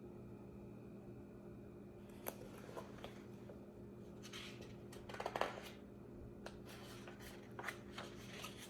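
Faint rustling and clicks of paper as a picture book's pages are handled and turned, loudest about five seconds in, over a low steady hum.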